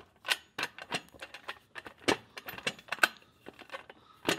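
Quick, irregular metallic clicks and clinks as aluminum extrusion pieces, bolts and tools are handled and fitted together, several a second, with a sharper knock about two seconds in and another near the end.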